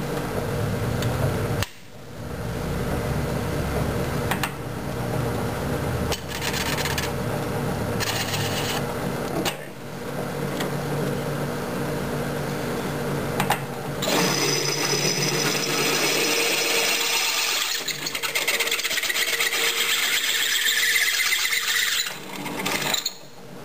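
Drill press motor running with a steady hum; in the second half a cobalt bit cuts into stainless steel plate with a harsh, high-pitched grinding squeal. The press is turning at 480 rpm, a little too fast for a 3/8-inch bit in stainless.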